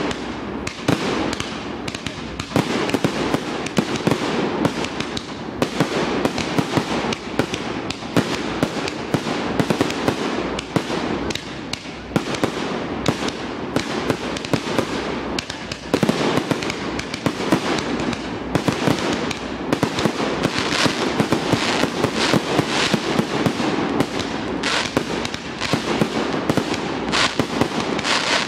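Fireworks display: a dense, continuous barrage of shell bursts and crackling, with many bangs overlapping each other.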